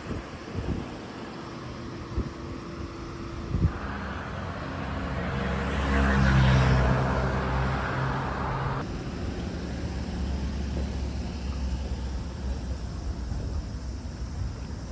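A motor vehicle passing close by on a street, its engine hum and tyre noise swelling to a peak about six seconds in and dropping away by about nine seconds, over steady traffic background.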